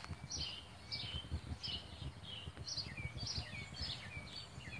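Small birds chirping steadily, short high notes repeating about two or three times a second, some gliding down in pitch, over a low rumble.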